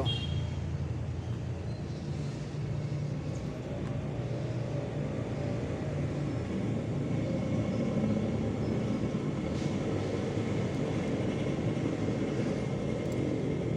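Steady low rumble of background noise, with a faint steady high tone coming in about halfway.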